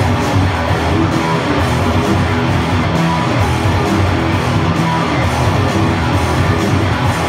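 Electric guitar being played with a pick, a continuous stream of notes at a steady loud level.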